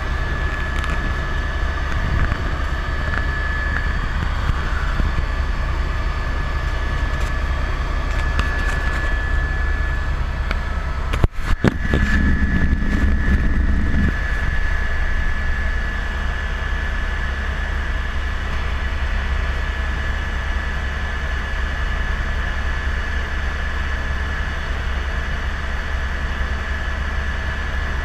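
Helicopter in flight heard from on board: a steady engine and rotor drone with a high, steady whine over it. About eleven seconds in the sound briefly cuts out with a couple of clicks, then it is louder for about two seconds.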